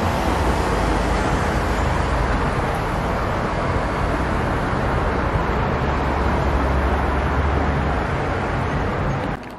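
Steady city traffic noise: a continuous wash of road noise with a low rumble underneath.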